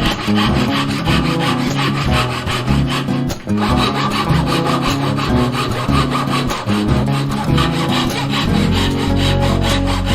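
A quick, continuous run of rasping strokes, like a hand tool working wood, over background music with a stepping bass line. There is a brief break about three and a half seconds in.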